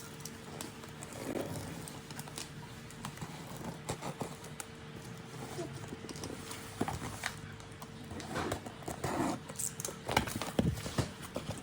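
Packaging being handled and unpacked: irregular clicks, taps and rustles over a faint steady hum.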